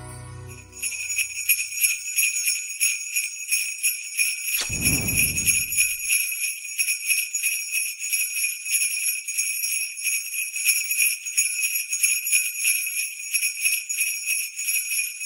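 Jingling bells shaken in a steady, pulsing rhythm, about three shakes a second. A single deep boom sounds about four and a half seconds in and dies away over about a second.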